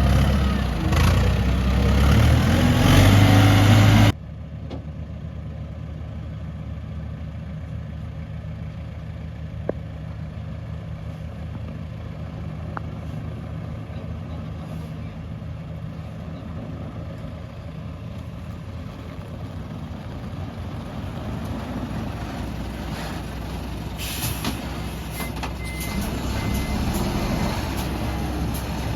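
Heavy diesel earthmoving machinery running: loud, dense engine and working noise that cuts off abruptly about four seconds in, then a steady low diesel drone. Faint short beeps, like a reversing alarm, come near the end.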